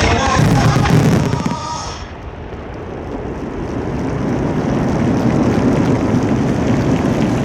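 Finale of a starmine fireworks display: a dense run of firework bursts and crackle over the last notes of the music, stopping about two seconds in. A wash of crowd noise then swells and holds.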